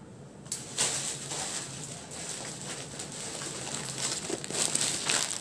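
Crinkling and rustling of a clear plastic garment packet being picked up and handled, irregular, with a few sharp crackles, starting about half a second in.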